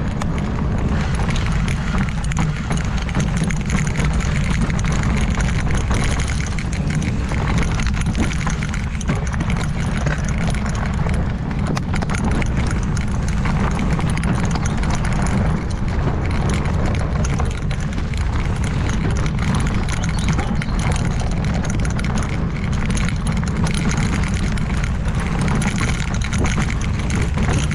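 Ibis Ripmo V2 mountain bike ridden fast down a rough, steep dirt trail. Wind rushes over the microphone in a constant low rumble, over a steady rattle and clatter from the tires, chain and suspension hitting rocks and roots.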